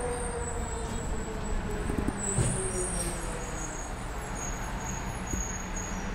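Distant road traffic: a steady low rumble, with faint thin high-pitched tones above it.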